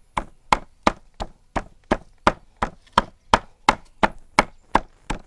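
A meat cleaver chopping raw meat on a thick round wooden chopping block: steady, evenly spaced chops, about three a second, each blade stroke going through the meat and knocking into the wood.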